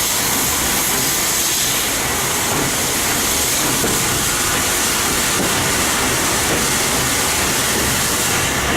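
Steady rumble and hiss of a slow steam-hauled train behind Furness Railway No 20, a vintage steam locomotive, heard from on board.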